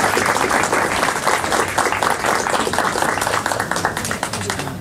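Audience applauding, many hands clapping densely. The applause thins out and fades near the end.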